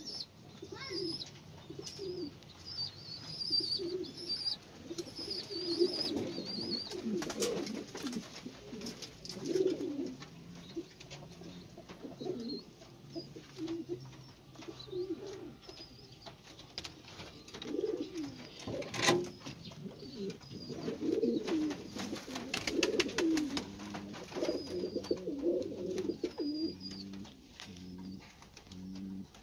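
Domestic pigeons cooing in a loft of wire-fronted cages, many low warbling coos overlapping. Thin high chirps come in the first several seconds, with scattered clicks and one sharp knock about two-thirds of the way through.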